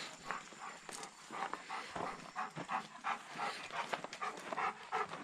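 An animal making a quick run of short, repeated sounds, several a second.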